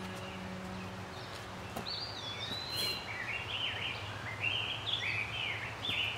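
A songbird singing a long run of quick warbling phrases over a steady low outdoor hum. Background music fades out in the first couple of seconds, before the song starts.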